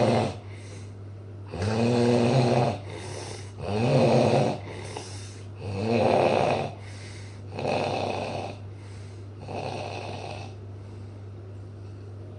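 Snoring: five loud snores about two seconds apart, each a buzzing pitched rattle, with a softer breath between them. The last two snores are weaker, and the snoring stops about ten seconds in.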